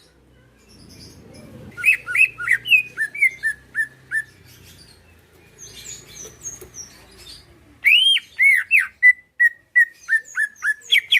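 Cucak ijo (green leafbird) singing in rapid whistled phrases. The first burst comes about two seconds in, with quick notes falling and settling into a run of short notes; softer, higher notes follow. A louder burst comes near the end, opening with a few arching notes and running into fast repeated short notes.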